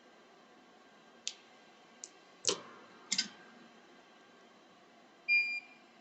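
A few small sharp clicks and taps, the loudest a little over halfway through, then a short high-pitched electronic beep about five seconds in.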